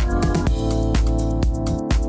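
Electronic background music with a steady driving beat and a heavy bass line.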